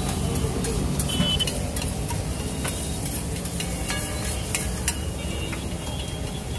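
Steel spatula scraping and clicking against a large flat griddle in quick, irregular strokes as an egg omelette mixture sizzles on it, with a steady low rumble underneath.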